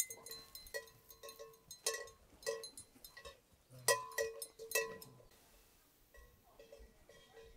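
A livestock bell clanking irregularly as the animal wearing it moves, each clank ringing at the same pitch. The loudest clanks come about four seconds in, and it grows quieter after about five seconds.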